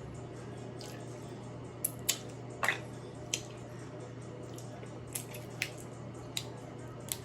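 Eating a seafood boil by hand: scattered sharp cracks and wet clicks of shells being cracked and peeled, about eight in all, one longer and squelchier a little under three seconds in, over a low steady hum.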